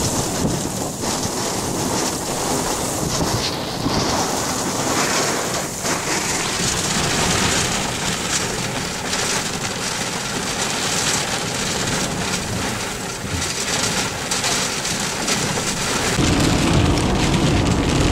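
Rain and hail pelting a vehicle's roof and windshield in a severe thunderstorm, heard from inside the cabin as a dense, steady patter of many small strikes. It grows louder and heavier about two seconds before the end.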